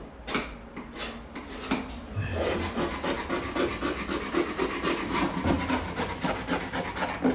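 A small hand tool scraping back and forth along the edge of a wooden floorboard where it meets the wall, raking debris out of the gap. The quick, even strokes start about two seconds in.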